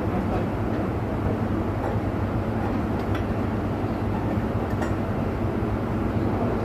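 Steady low machine drone, like a diesel engine running, with a couple of faint metallic clinks about three and five seconds in.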